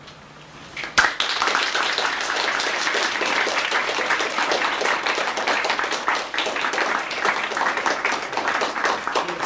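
Audience applauding: a clear clap about a second in, then dense, steady clapping.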